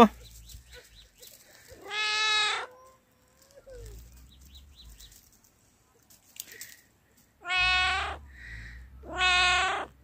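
Tabby cat meowing three times: one call about two seconds in, then two close together near the end.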